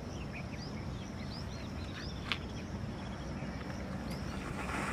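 Birds chirping over a steady high insect drone and low wind rumble, with one sharp click about halfway through. Right at the end a hiss begins to rise as the smoke bomb catches.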